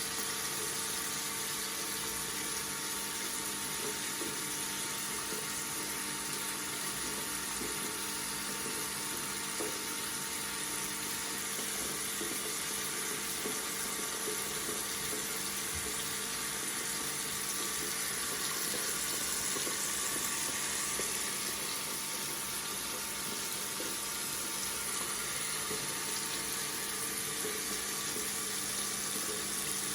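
Water running steadily from a tap, a continuous even rush of water.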